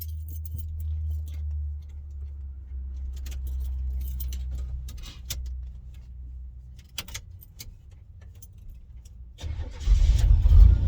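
Keys jangling and a few clicks over a steady low hum, then about nine and a half seconds in the 1982 Chevrolet El Camino's engine cranks and starts right up, running loud from then on.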